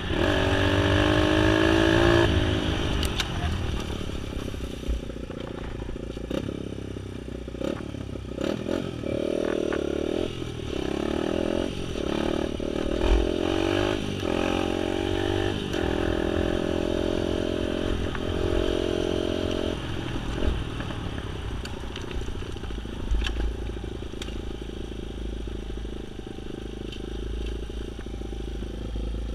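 Small engine of an off-road vehicle riding a rutted dirt track, its pitch climbing in the first couple of seconds and then rising and falling with the throttle, with rattles and knocks from the bumps.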